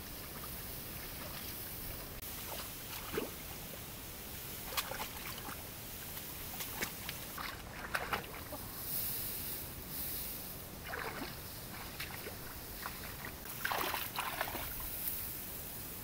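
Shallow muddy water splashing and sloshing in short, irregular bursts as someone wades through it among tall grass, over a steady outdoor hiss.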